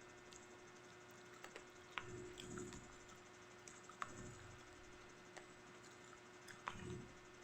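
Faint eating sounds: quiet chewing with scattered small clicks, sharpest about two, four and near seven seconds in.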